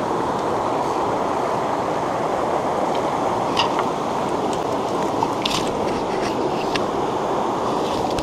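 Mountain stream rushing over rocks, a steady, even rush of water, with a few light clicks and taps about halfway through.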